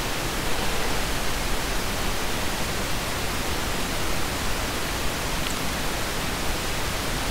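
Steady hiss of microphone and recording noise, with one faint click about five and a half seconds in.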